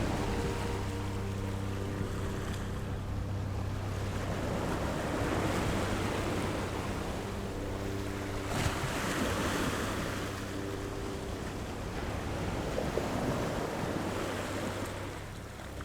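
Ocean waves breaking and washing in slow swells, one surge louder about halfway through, with faint held tones underneath.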